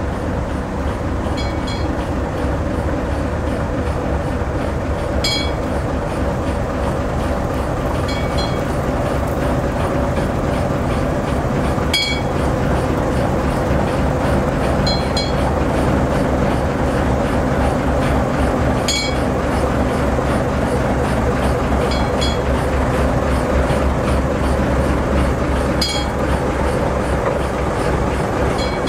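Small diesel shunting locomotive's engine running steadily while it slowly hauls an electric locomotive over the rails. Sharp metallic clicks come every three to four seconds, some in pairs.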